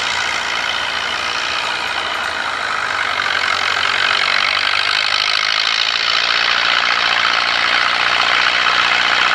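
Massey Ferguson 185 tractor's diesel engine running steadily under load as it pulls a tiller through dry soil, growing slightly louder in the second half.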